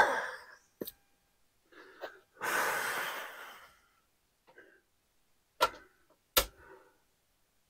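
A long breathy exhale like a sigh, close to the microphone, about two and a half seconds in, with a few faint taps. Two short sharp knocks come near the end. The chop saw is silent, its breaker tripped.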